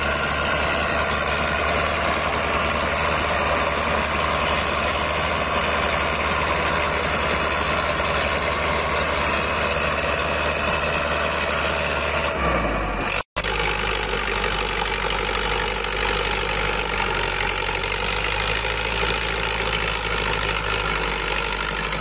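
Tractor diesel engine running steadily under load, hauling a heavily laden trailer through soft sandy soil. The sound cuts out for an instant about 13 seconds in, then carries on with a slightly different tone.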